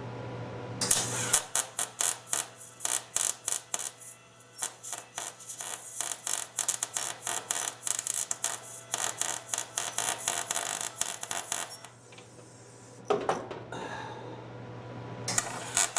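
Electric welder arc crackling and spitting in irregular sharp bursts, several a second, for about eleven seconds. A nut is being welded onto a broken, rusted bolt stub so it can be turned out.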